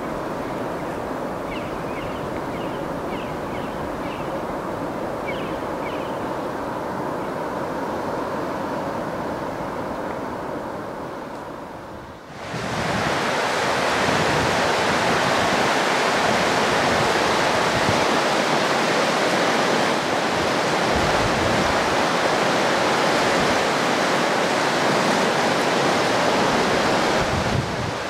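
Steady rushing noise, dull at first; about twelve seconds in it cuts suddenly to a louder, brighter, full rush of river rapids.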